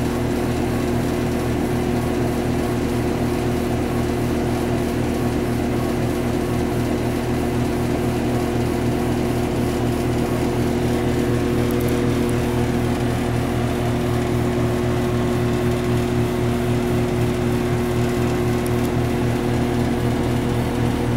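A running CO2 laser cutter giving off a steady low machine hum, several even tones held without change.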